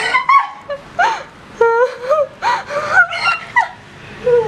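Excited high-pitched shrieks and laughter from young women and girls, a quick run of short squealing cries that rise and fall in pitch, as a rubber-banded watermelon bursts open.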